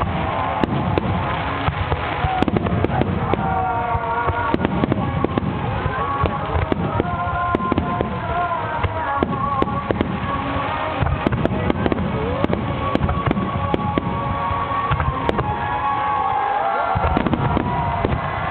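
Large aerial firework shells bursting in a rapid, unbroken barrage of booms and crackles, with a song with sung melody playing over loudspeakers at the same time.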